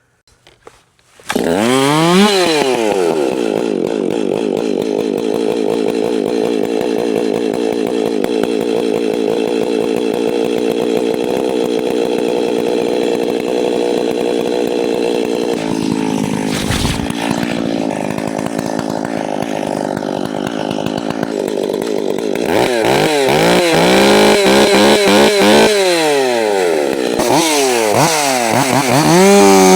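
A Stihl MS 261 two-stroke chainsaw starts suddenly about a second in and runs loud, revved up and down at first, then held fairly steady. In the last third the throttle is opened and eased off several times before it holds at high revs.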